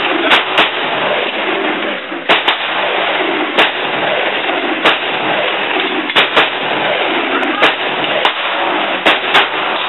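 Rifle gunshots from several shooters on a firing line: about a dozen sharp cracks at uneven intervals, some in quick pairs, over a steady hiss.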